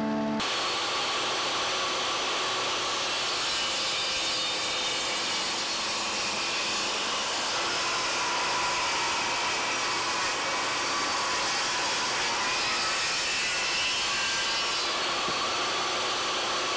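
Woodworking power tool running continuously while cutting teak boards, a steady, even noise with little change in pitch or level.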